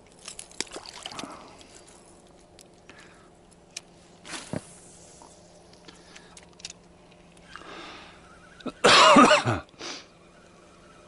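Small clicks and knocks of spinning tackle being handled, a short swish about four seconds in, then a short loud cough-like burst from a person about nine seconds in.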